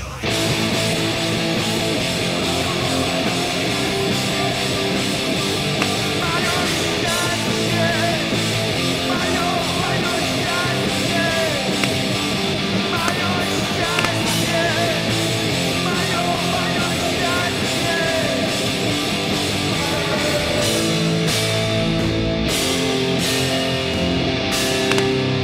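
Background rock music with electric guitar, playing steadily.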